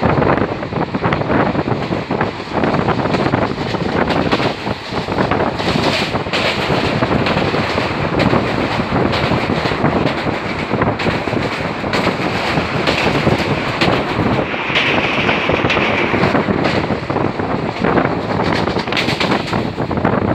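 Passenger train coach running at speed on the track, heard through an open window: a loud, continuous rattle and clatter, with wind buffeting the microphone.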